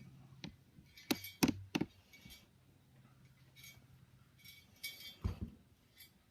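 Small steel parts of a Stevens 820 shotgun's action clinking and clicking against each other as they are worked into place by hand: a quick run of sharp metal clicks about a second in, lighter clinking after, and a duller knock near the end.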